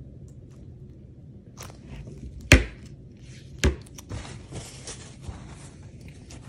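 Two sharp knocks a little over a second apart, then soft rustling: a wire soap cutter and a bar of cold process soap being handled against a wooden cutting block as a bar is cut off the loaf.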